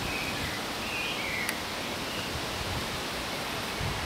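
Steady outdoor rushing noise, an even hiss across the whole range, with a single light click about a second and a half in.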